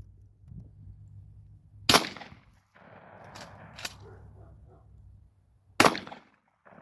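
Two shotgun shots loaded with birdshot, about four seconds apart, each trailing off briefly.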